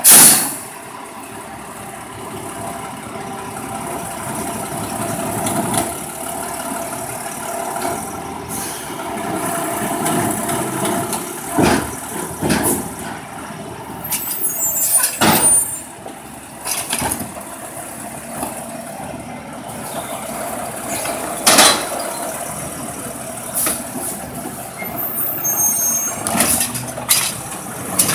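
Natural-gas side-loader garbage truck running while its automated arm lifts a wheeled cart, dumps it into the hopper and sets it back down. There is a loud air-brake hiss at the start and a few sharp bangs in the middle as the cart is emptied.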